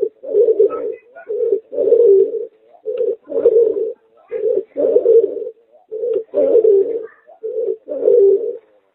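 Pigeon–dove hybrid (merpater, a cross of a domestic pigeon with a puter dove) cooing: a repeated two-part coo, a short note followed by a longer one, about seven times at an even pace of roughly one phrase every second and a quarter.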